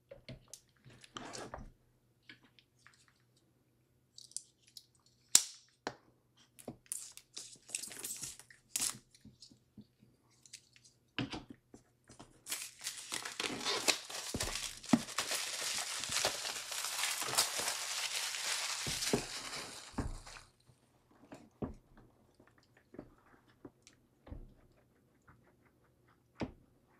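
Clear plastic shrink-wrap being torn off a cardboard product box and crumpled. Scattered crackles and taps come first, then about eight seconds of dense crinkling about halfway through, then a few light taps as the box is handled.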